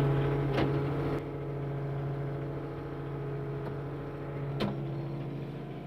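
Daewoo Solar 035 mini excavator's diesel engine running steadily just after starting. Its sound drops in level and gets duller about a second in. Two brief clicks occur, one early and one near the end.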